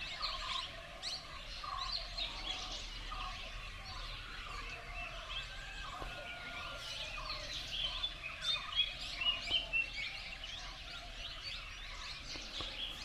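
A chorus of many wild birds chirping and calling over one another, with a few louder calls about eight to ten seconds in.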